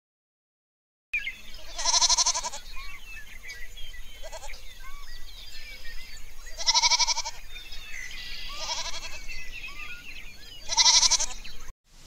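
Farm animal bleating: three loud, wavering bleats spaced a few seconds apart, with a couple of fainter bleats between them. Faint chirping runs underneath.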